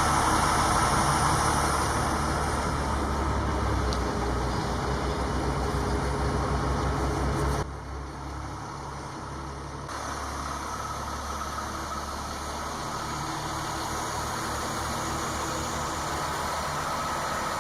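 A crane's engine running steadily, a low drone that drops suddenly in level about eight seconds in and carries on a little quieter.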